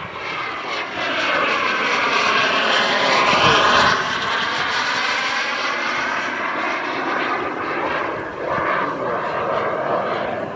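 KingTech 260 turbine of a giant-scale RC F-86 Sabre jet whining, swelling to its loudest about four seconds in and then easing off to a steadier level.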